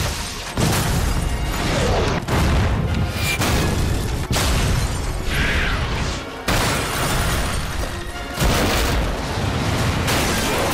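A series of big explosions, one blast about every two seconds, each followed by a rumbling roar, over dramatic background music.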